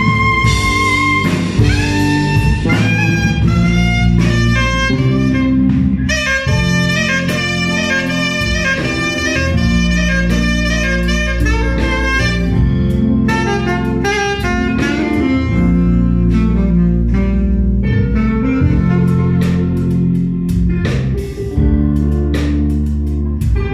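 Saxophone playing a live solo, a held note at the start giving way to fast runs of quick notes, over a band with bass and drums.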